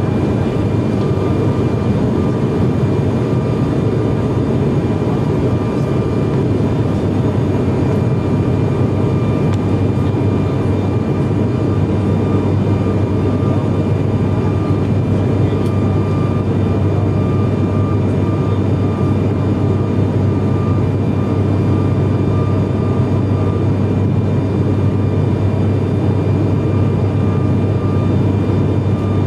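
Cabin drone of an ATR 72-500's Pratt & Whitney PW127 turboprops and six-blade propellers in flight after takeoff: a loud, steady drone with a deep propeller hum and a faint high whine over it.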